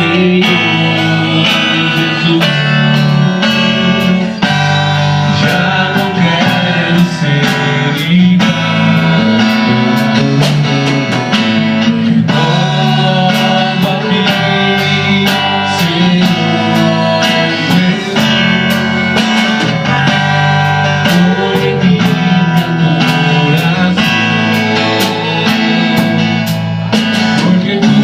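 Garage band playing a gospel worship song: guitar and bass over drums with a steady beat.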